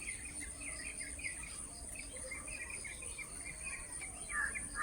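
Birds chirping in quick repeated short notes over a steady high insect buzz, with a couple of louder chirps near the end.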